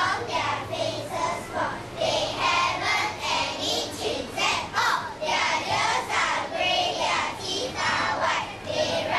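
A group of children's voices in unison, delivering a piece in a steady rhythm of short phrases.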